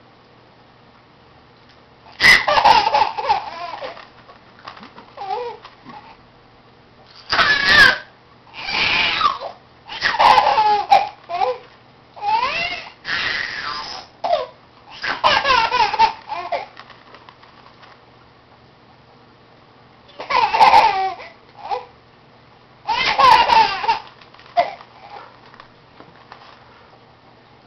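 A baby boy laughing in repeated bursts of laughter, with quiet pauses between them.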